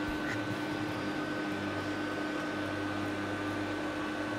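Steady background hum and hiss, with a constant high whine and a lower steady tone, like a fan or air conditioner running. No distinct handling or tool sounds stand out.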